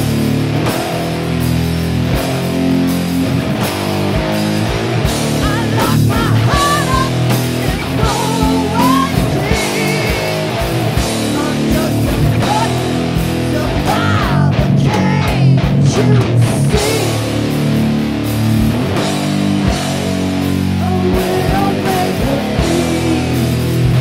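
Rock band playing a loud, steady heavy song: electric guitar with bass and drums.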